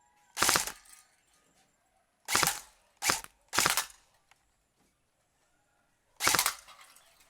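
A BB gun fired five times at an uneven pace, each a sharp crack with a short tail: two shots about a second apart, a quick pair, then one more near the end.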